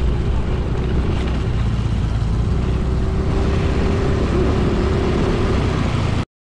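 Small motorcycle engine running steadily while riding, with wind noise on the microphone; it cuts off suddenly about six seconds in.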